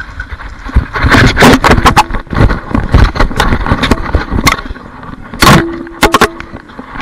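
Loud rustling, knocks and thumps of handling noise on a body-worn camera as its wearer runs and tumbles over snow and leaf litter, with a heavy thud about five and a half seconds in.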